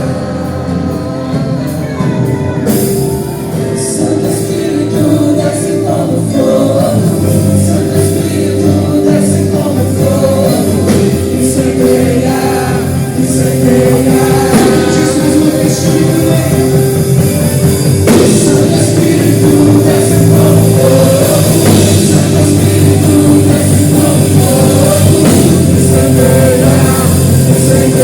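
Gospel worship music: a band with drum kit playing under singing voices, building gradually louder.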